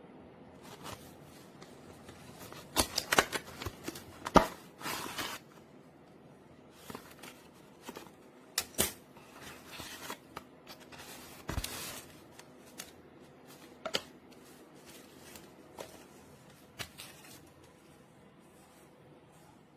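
Handling noises: irregular clicks, knocks and short rustles, bunched around the first few seconds and thinning out toward the end.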